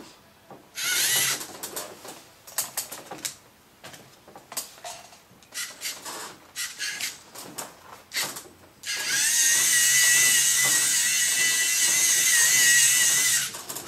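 LEGO Mindstorms NXT servo motors whining through their gears as the small robot car drives and steers: short stop-start bursts first, then a steady whine for about four and a half seconds in the second half.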